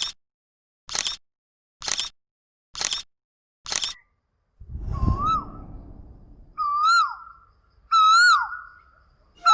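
Five sharp clicks about a second apart, then a bird calling three times, each call a held note that drops sharply at its end, the last two the loudest.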